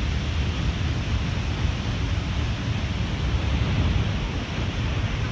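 Steady rushing noise of Havasu Falls, a tall waterfall plunging into a pool, heard close to its base, heaviest in the low, deep range.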